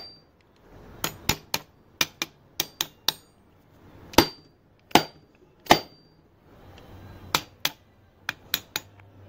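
A piston being tapped down through a ring compressor band into the cylinder bore of a Toyota 22R engine block. There are about sixteen sharp taps at uneven spacing, some in quick runs of two or three, and several leave a brief metallic ring.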